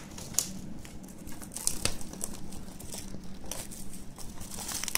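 Plastic shrink-wrap on a Blu-ray case being cut and pulled off, crinkling and crackling irregularly.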